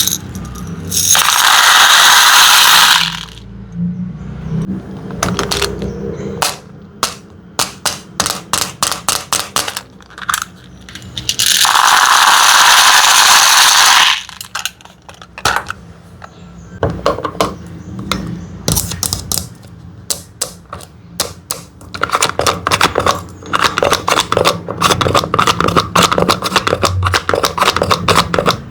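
Small hard candies poured and clattering into a container, in two long pours of a few seconds each. Between and after the pours come rapid scattered clicks of single pieces dropping and rattling.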